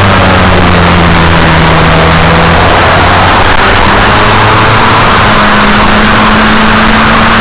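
Brushless electric motor and propeller of an E-flite Commander RC sport plane on a 4S battery, heard from on board with heavy wind rush over the microphone. The motor tone is steady, shifting to a new pitch about three seconds in and holding there.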